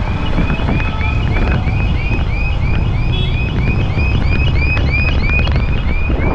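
Wind buffeting the microphone over a heavy, low road-traffic rumble, with a short high chirp repeating about three times a second throughout.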